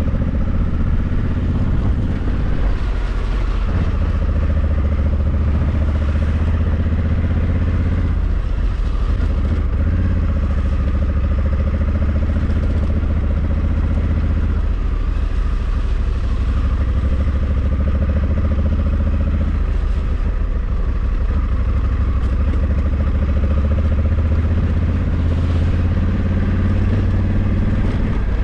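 Honda Africa Twin 1100's parallel-twin engine running steadily while the motorcycle is ridden. The engine note shifts a few times as the revs change.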